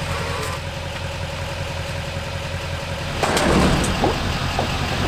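Firewood vending machine at work after a cash payment: a steady whine, then about three seconds in a loud mechanical running noise as the dispenser starts up, over a low steady hum.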